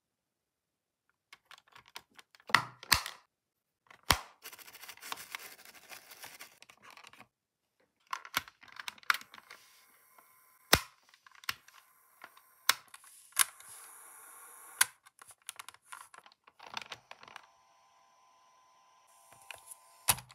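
Plastic clicks, snaps and handling noise from a Sony Walkman WM-BF44 cassette player's casing and cassette door being fitted and worked by hand, with a scattering of sharp single clicks.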